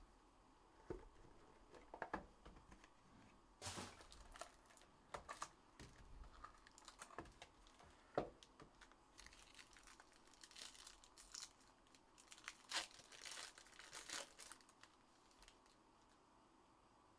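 Faint crinkling and tearing of a foil trading-card pack and the handling of its cardboard box, in scattered short rustles and taps.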